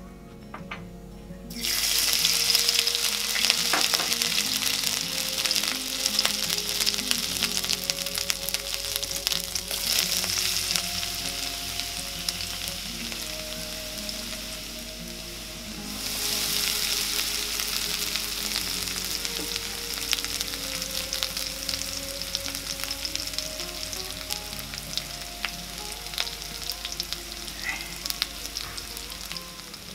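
Chopped garlic, then chopped green leaves and a cinnamon stick, frying in hot cooking oil in a metal wok: a sudden loud sizzle that starts about one and a half seconds in, eases off, then flares up again about halfway through as more goes into the oil, with short clicks of stirring throughout.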